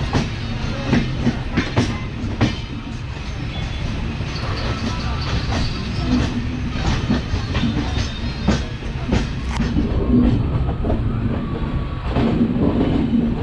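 Train running along the track, a steady rumble with irregular clicks of the wheels passing over rail joints.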